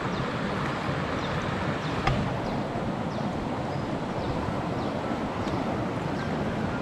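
Steady rushing noise of river water and wind on the microphone, with faint high chirps and a single light click about two seconds in.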